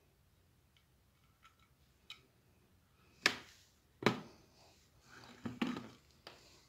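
Faint small ticks, then a few sharp clicks and knocks about three and four seconds in and again a little later: clear crystal beads and a ribbed glass dish being handled against a mirror tray.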